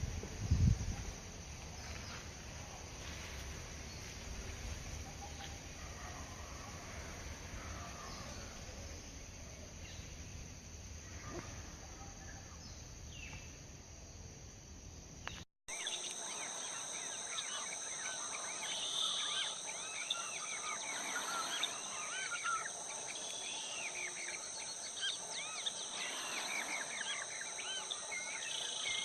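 Steady high-pitched insect drone throughout. In the first half there is a low rumble and a thump right at the start. After an abrupt cut about halfway, many quick chirping bird calls sound over the drone.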